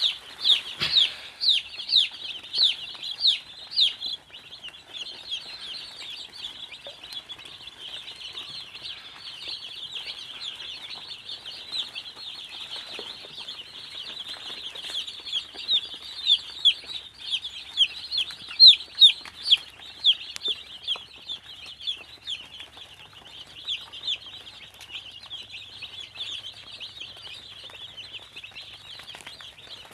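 A flock of young broiler chicks peeping continuously, many short falling chirps overlapping, with louder bursts of peeps in the first few seconds and again around two-thirds of the way through.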